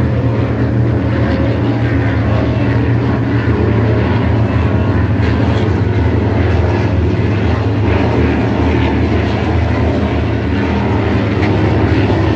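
Loud, steady engine drone from offshore racing powerboats and a low-flying helicopter over the race course.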